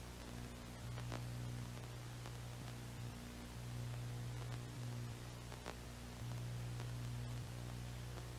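Low steady electrical hum with a faint hiss, swelling and easing a little, and a few faint ticks.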